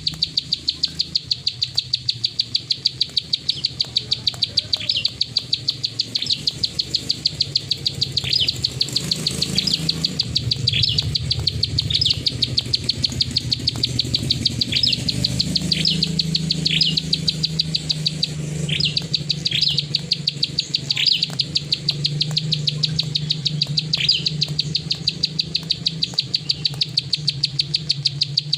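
Plain prinia (prenjak sawah) giving its clicking call: a steady, fast run of dry, evenly spaced clicks, with short downward-sweeping notes mixed in now and then.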